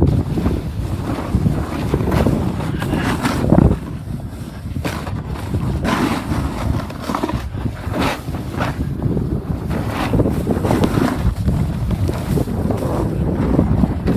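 Wind buffeting the microphone of a camera carried downhill at speed over fresh snow: a loud, gusting rumble with the hiss of snow underneath. It eases briefly about four seconds in.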